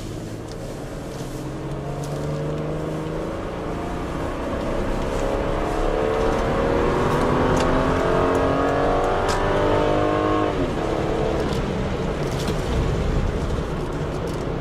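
Toyota Supra JZA80's naturally aspirated 2JZ-GE straight-six, with automatic gearbox, accelerating hard, heard from inside the cabin. The engine note climbs steadily for about eight seconds, then drops sharply about ten and a half seconds in as the gearbox shifts up, and the car keeps pulling.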